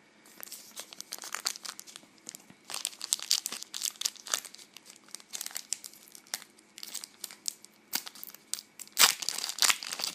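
Foil wrapper of a Pokémon trading card booster pack crinkling and tearing as it is handled and ripped open. It is a run of irregular sharp crackles, loudest about nine seconds in.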